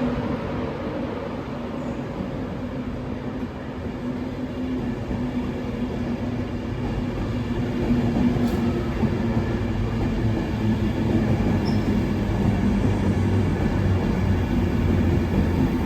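A passenger train running: a steady low rumble with a humming drone, slowly growing louder.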